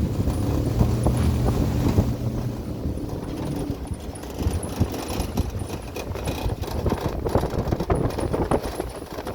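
Vehicle driving on a rough dirt road: a steady low engine hum for the first few seconds, then many irregular knocks and rattles as it bumps over uneven ground.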